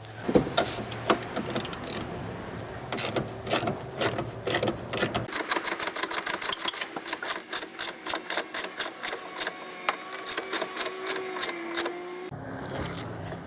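Socket ratchet clicking in quick runs as it turns a snowmobile's track adjuster bolt, drawing the rear idler wheels back to take slack out of a loose track.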